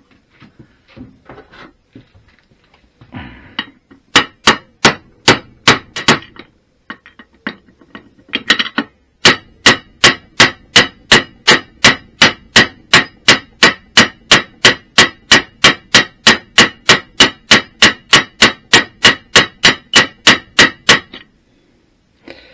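Hammer striking a metal bearing drift to drive a stuck ball bearing into a BSA Bantam D3's aluminium crankcase, each blow ringing. A few strikes about four seconds in, then a steady run of about two and a half blows a second for some twelve seconds that stops suddenly; the bearing is stuck part-way and does not go fully home.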